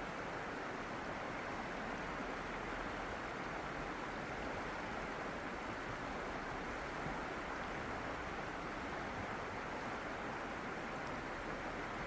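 Steady, even rushing of flowing water, unchanging throughout with no separate splashes or other events.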